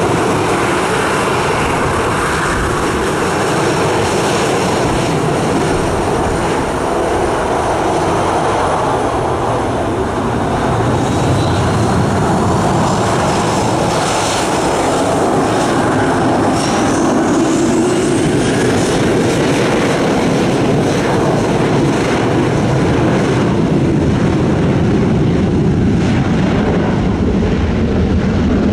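Boeing 737-800's CFM56 turbofan engines running at taxi power as the airliner rolls past, a steady, loud jet rumble that grows slightly louder in the second half, with a brief faint rising whine partway through.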